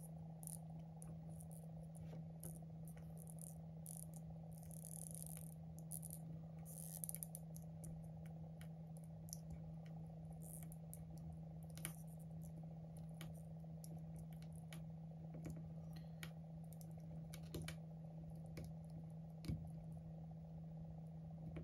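Faint, scattered clicks and taps of small tools and fingers on an open iPhone 11 as the battery's adhesive pull-tab strips are worked loose, with a couple of short scratchy rustles, over a steady low hum.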